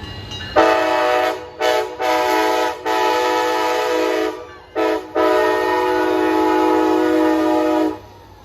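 Amtrak Pacific Surfliner train horn sounding a run of six blasts, each a chord of several notes: a long one, a short toot, two medium ones, another short toot, then a long final blast of nearly three seconds. The blasts are loud, and the crew is playing them as a horn show for the railfan.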